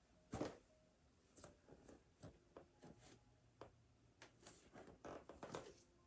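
Faint rustling of clothing and soft thumps of a person doing full prostration bows on the floor, with a firmer thud about half a second in and a cluster of rustles near the end.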